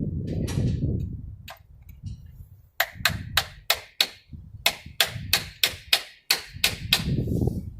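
Hammer tapping a socket onto swollen, chrome-capped lug nuts: about fifteen sharp metallic strikes, roughly three a second, starting about three seconds in. A low rumble comes before and after the strikes.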